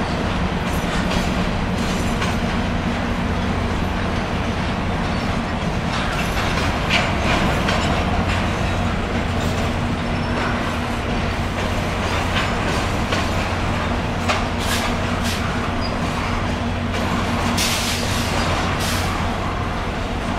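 Canadian National freight train cars rolling past: a steady rumble of steel wheels on the rails, with short high-pitched squeals and clacks from the wheels now and then, most of them in the last third.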